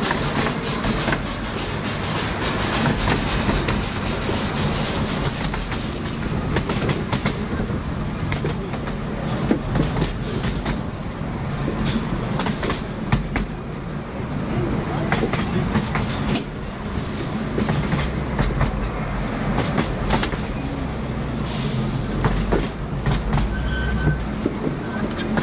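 Ride noise of a 10¼-inch-gauge miniature railway train heard from an open passenger coach: a continuous rumble with irregular clicks as the wheels run over the rail joints and the coaches rattle.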